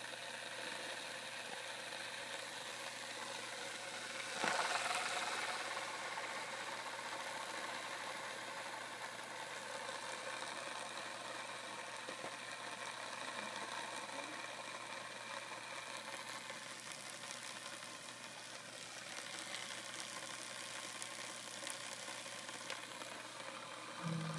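Skateboard wheel spinning freely on its ball bearings, a steady whirring rattle with a fine hiss. It swells about four seconds in and then slowly fades as the wheel runs down.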